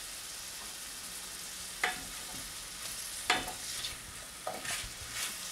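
Diced courgette, onion and garlic sizzling steadily in a stainless steel frying pan, stirred with a wooden spatula that scrapes and knocks against the pan a few times from about two seconds in.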